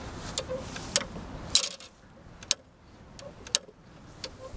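Scattered sharp metallic clicks and clinks, about half a dozen, a few ringing briefly: hands handling metal parts and fittings on the lawn mower's handle and cable.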